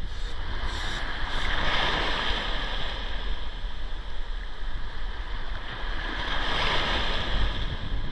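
Small waves washing up a sandy beach: the foamy surge swells into a hiss twice, a few seconds apart, over a steady low rumble.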